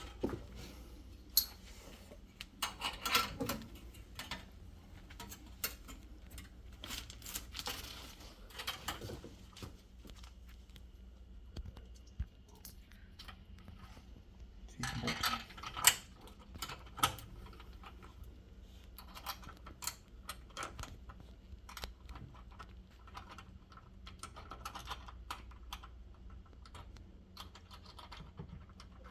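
Light metal clicks, taps and rattles of water-heater earthquake strap and bracket hardware being handled and fitted. They come irregularly, with busier clusters about 3, 8 and 15 seconds in.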